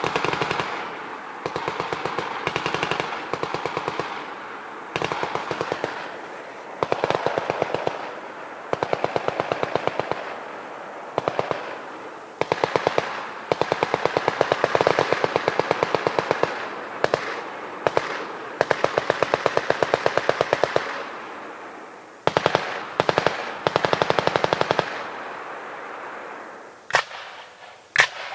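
General-purpose machine guns firing a long series of bursts of automatic fire, each a second or two long with short pauses between. Near the end come two single sharp shots.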